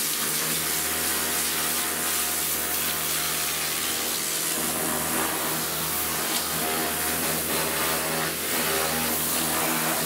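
Pressure washer running steadily, its jet hissing against the van's bare steel interior panels as it strips off old expanding foam, with the steady hum of the pump underneath.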